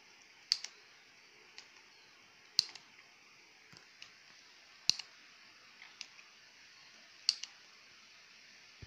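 Spring-loaded desoldering pump (solder sucker) being cocked and fired against a circuit board's solder joints to lift an IC off the board: four sharp snaps about two seconds apart, each with a small after-click, and softer clicks between them as the plunger is pushed back down.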